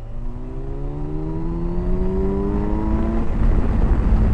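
Kawasaki Versys 1000's inline-four engine pulling hard under acceleration, its pitch rising steadily for about three seconds and then levelling off as rushing wind grows louder. The rider feels it is gutless at the bottom end when leaned on for power.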